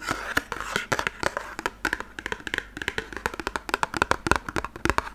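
Fingers tapping on a small cardboard box of solid shampoo held right at the microphone: quick, irregular taps, several a second.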